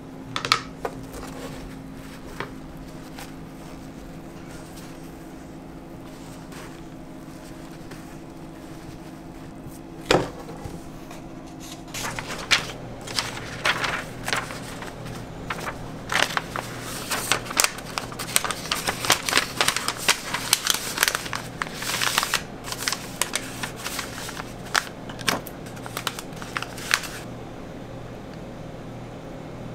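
Kraft paper rustling and crinkling in a dense run of quick crackles as a folded crepe is wrapped into a paper cone, heard through the second half over a steady low hum. A few single clicks come before it.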